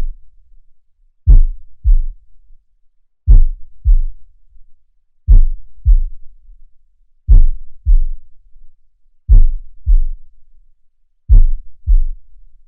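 Heartbeat sound effect: slow, deep paired thumps in a lub-dub pattern, a stronger beat then a weaker one, repeating about every two seconds.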